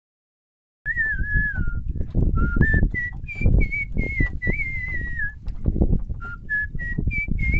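A man whistling a tune by mouth in short melodic phrases, over a low uneven rumble with soft knocks. It starts about a second in, after a brief silent gap.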